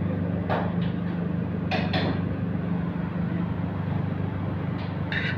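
Steady mechanical hum of commercial-kitchen equipment, with a few short clinks of a metal ladle against a plate and pan.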